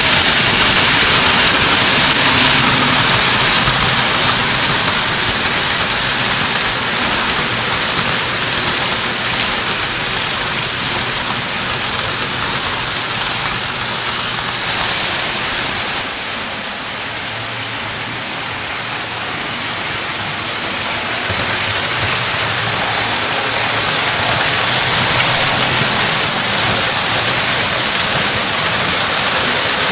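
O scale model trains running on a three-rail layout: a steady hiss and rattle of metal wheels on track over a low motor hum. It drops somewhat about halfway through, then builds again.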